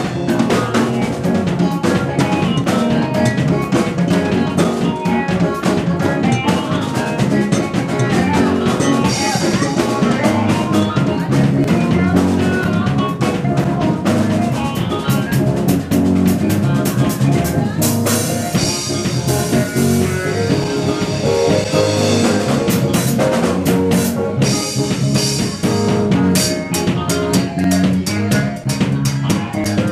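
A band playing, driven by a drum kit with steady snare and bass drum hits, and cymbals washing over the music about two-thirds of the way in and again a few seconds later.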